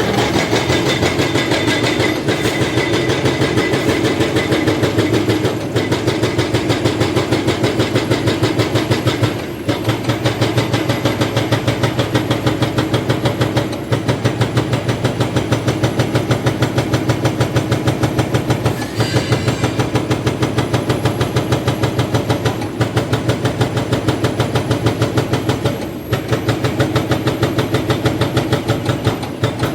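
Excavator-mounted hydraulic breaker hammering concrete: a rapid, even train of blows over the excavator's engine, with short breaks every four seconds or so.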